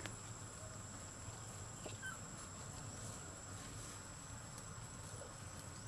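Forest ambience: a steady high-pitched insect drone, with a few faint short chirps and soft clicks.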